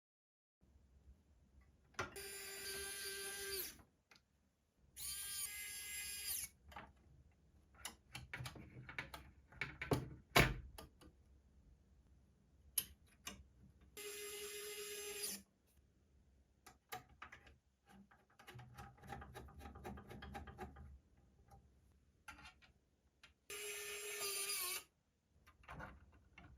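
A small electric screwdriver whines in four short bursts of about a second and a half each, driving screws while a small-form-factor PC is assembled. Light clicks and knocks of parts being handled come between the bursts.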